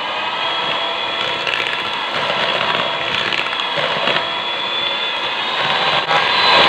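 Electric hand mixer running steadily with a motor whine, its beaters whisking eggs and sugar in a bowl until the mixture turns pale and fluffy.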